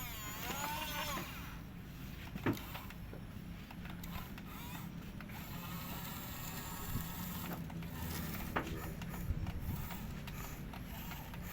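Excavator at work: its diesel engine runs steadily under scattered clanks and knocks of the machinery. A brief wavering high whine sounds in the first second.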